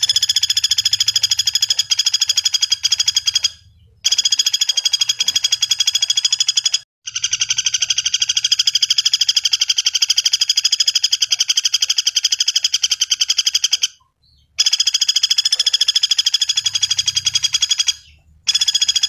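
Common flameback woodpecker (pelatuk bawang) calling in long, very rapid rattling trills, five runs broken by short pauses.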